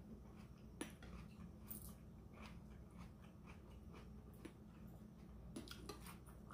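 Faint close-up chewing and wet mouth sounds of someone eating shrimp ceviche, with scattered soft clicks of a metal spoon against a glass bowl, several of them close together near the end.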